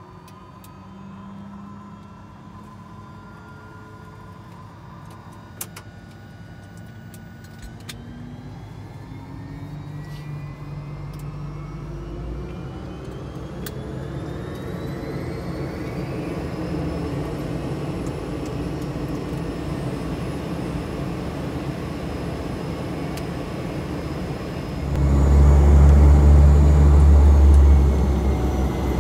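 Turboprop aircraft engine starting and spooling up: a rising whine climbs for several seconds and then holds steady as the sound grows louder. A much louder low drone comes in about 25 seconds in.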